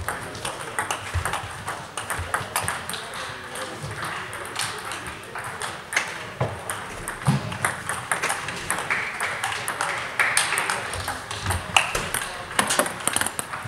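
Table tennis balls clicking off bats and tables in rallies, the near table's strokes mixed with irregular ticks from other tables in play around the hall.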